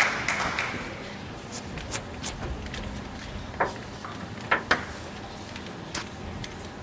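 Spectator applause dying away in the first second, then a quiet sports hall with a few scattered light clicks and taps.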